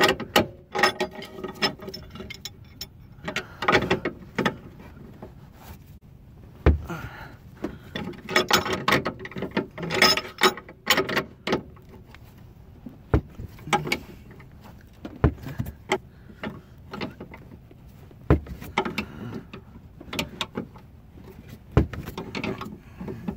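Irregular metallic clicks and clanks of hand tools, a pipe wrench clamped on the bolt, working a seized lower control arm bolt loose.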